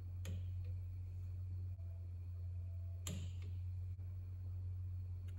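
Click-type torque wrench clicking as crankcase cover bolts reach the set torque of 17 ft-lbs: three sharp clicks, the second about three seconds after the first and the third near the end, over a steady low hum.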